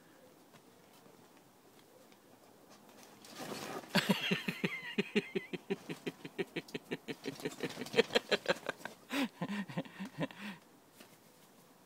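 A cat's paws on a taut fabric gazebo canopy: a quick, even run of taps on the stretched fabric, about five a second, lasting some seven seconds. It opens with a scraping rustle and ends with a few duller thuds.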